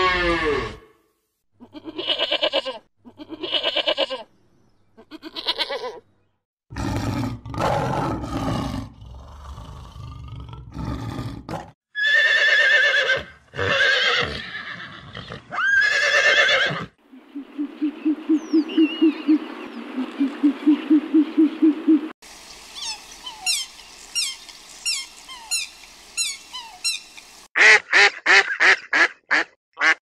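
A run of farm animal calls, one kind after another. A cow's moo ends just as it begins, a horse whinnies around the middle, and white domestic ducks quack in quick repeated bursts near the end. Other animal calls fill the gaps between them.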